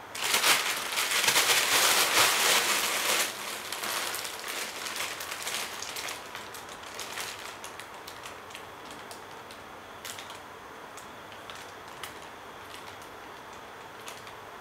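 Thin clear plastic bag crinkling and crackling as a cat burrows and rolls into it. The crackling is loud for the first three seconds, then fades to scattered crinkles and a few single crackles near the end.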